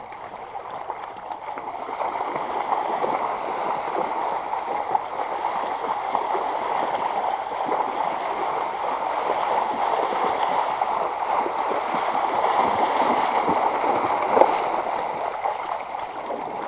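Shallow water splashing and gurgling steadily, with one sharper splash late on.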